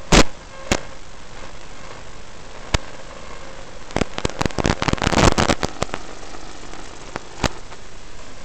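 Steady hiss on an FPV quadcopter's flight recording, broken by sharp crackles and pops that come thickest a little past the middle.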